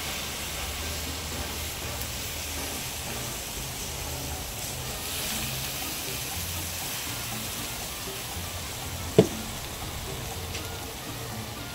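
Turkey bacon sizzling on a Blackstone 22-inch flat-top griddle, a steady hiss that swells briefly about five seconds in as liquid is squirted from a squeeze bottle onto the hot steel. A single sharp knock about nine seconds in is the loudest sound.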